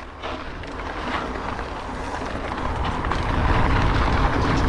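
Mountain bike rolling fast down a dirt singletrack: tyres on loose dirt, short rattles over bumps, and wind rushing over the camera microphone, getting steadily louder as speed builds.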